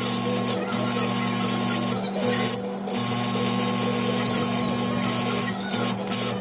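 TIG welding arc hissing while welding a two-stroke exhaust silencer, cutting out briefly about five times, over a steady low hum.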